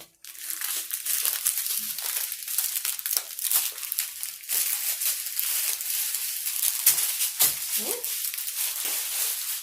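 Small plastic bags of diamond-painting drills crinkling and crackling steadily as they are handled and sorted.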